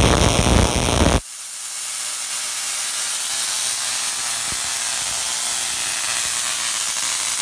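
Homemade bipolar Tesla coil firing: its brass-ball spark gap, fed by an oil-burner ignition transformer, sparks continuously. It starts as a loud, harsh crackle for about the first second, then settles into a steady high hiss.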